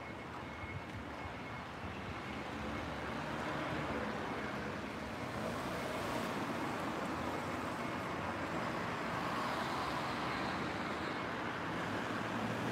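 Steady road traffic noise, swelling a few seconds in and then holding.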